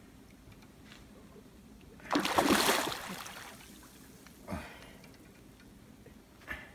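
Hooked carp thrashing at the water's surface: one loud splash about two seconds in, then a smaller splash a couple of seconds later.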